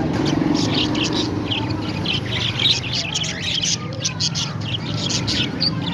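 Parrots chattering, a dense run of short, high chirps.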